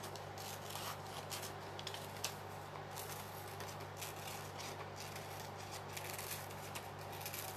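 Scissors snipping through magazine paper, a scattered run of short crisp cuts with the paper rustling, over a steady low hum.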